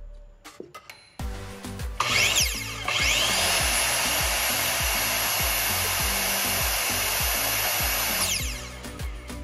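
Electric motor of a corded power tool run with no load. It spins up with a rising whine about two seconds in, runs at a steady speed, and winds down near the end.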